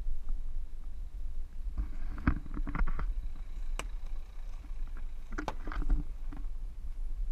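An SUV rolling slowly past on a dirt forest track, a low steady rumble with sharp crackles as twigs and grit crunch under its tyres, the loudest about two to six seconds in.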